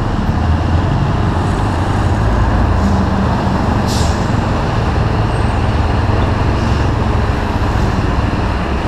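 Steady low engine rumble of a Honda CB300 motorcycle running at low speed, squeezed between a diesel bus and a truck whose engines run close alongside. About four seconds in there is a short air-brake hiss.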